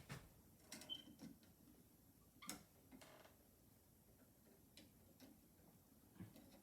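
Near silence broken by a few faint, irregularly spaced clicks and taps of metal hand tools and wires being handled at a wall switch box.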